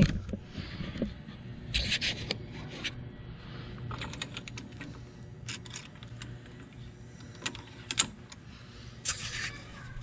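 Metal clicks and scraping from a hand-cranked threaded caliper spreader being turned against a brake pad, pushing the front brake caliper's piston back. Short scraping bursts about two seconds in and again near the end, with scattered clicks between.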